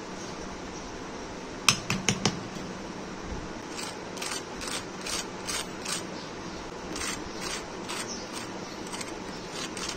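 A fork's tines scraping and crunching into the crisp fried crust of a sabudana vada, short crackly scrapes about two or three a second from about four seconds in. A few sharp clicks come about two seconds in, as the vada is picked up.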